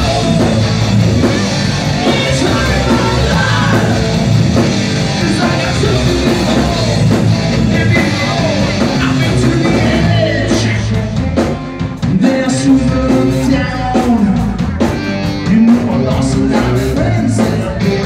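Live rock band playing loud: electric guitar, bass guitar and drum kit, with a male singer on a microphone.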